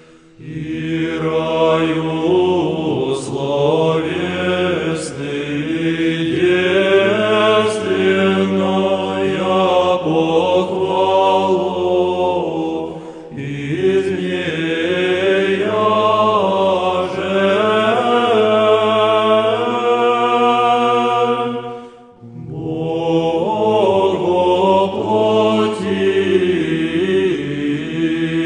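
Male monastic choir singing Russian Znamenny chant a cappella: a slow melody over steady, held low notes, pausing briefly twice between phrases.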